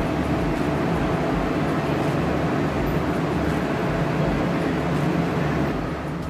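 Railway station ambience: a steady rumble and low hum from passenger trains standing at the platforms.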